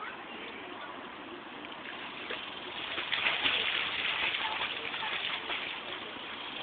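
A swimmer's arms and legs splashing and churning pool water, the splashing growing louder for a few seconds midway through.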